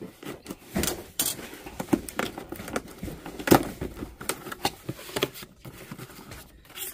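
A cardboard box being opened by hand: a box cutter slitting the packing tape, then the tape and cardboard flaps pulled open, an irregular run of scrapes, rustles and knocks, the loudest about three and a half seconds in.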